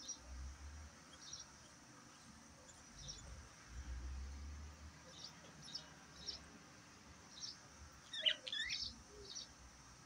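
Budgerigars chirping softly in short, high chirps, scattered a few at a time, with a brief louder burst of chirping about eight seconds in.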